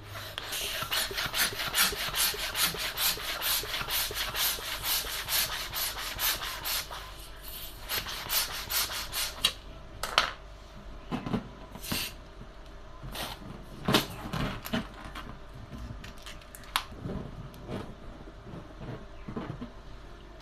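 Scratchy rubbing strokes from hands working balloon packaging, about three or four a second for the first nine seconds. Sparser separate scrapes and taps follow.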